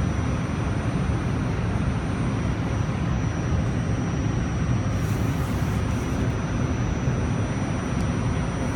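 Steady rumble of a train running, heard from inside the carriage, with a thin high whine over it. There is a brief hiss about five seconds in.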